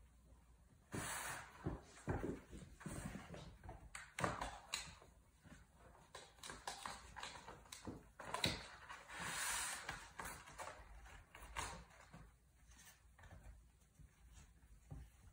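Kittens playing on a corrugated cardboard scratcher: irregular light knocks and thumps from paws and landings, with a few short bursts of scratching and scrabbling on the cardboard.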